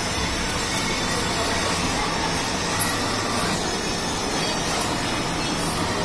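Child's battery-powered ride-on toy car running across a tiled floor: a steady rumble of its electric motors and hard plastic wheels rolling.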